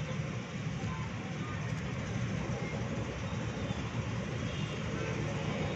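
Steady low rumbling background noise with no distinct pecks or calls standing out.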